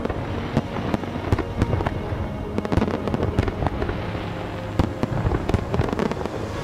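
A large aerial fireworks display: many shells bursting in a rapid, continuous barrage of sharp overlapping bangs, with music playing underneath.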